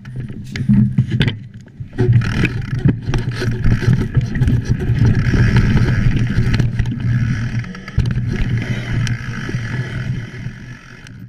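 Mountain bike ridden fast along a trail covered in dry leaves, heard from a camera mounted on the rider: tyres rolling through the leaves, the bike rattling and knocking over bumps, and wind rumbling on the microphone. The rumble grows loud about two seconds in and eases near the end.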